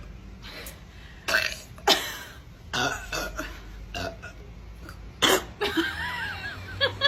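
A woman belching several times in a row, short separate burps with the loudest about five seconds in.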